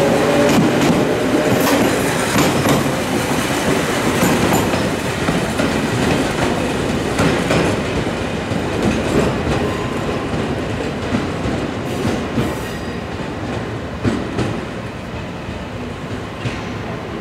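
Toyama Chiho Railway 14760 series two-car electric train pulling away. At the start a rising motor whine, then wheels rolling and clicking over rail joints and points, fading steadily as the train recedes.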